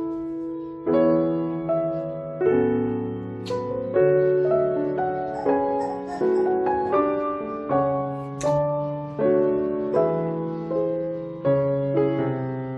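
Background piano music: soft chords struck one after another at a slow, even pace.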